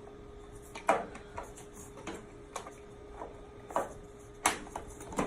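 Irregular clicks and knocks of a washing machine's plastic bottom cover being handled and fitted back into place, the loudest about a second in and another sharp one about four and a half seconds in, over a faint steady hum.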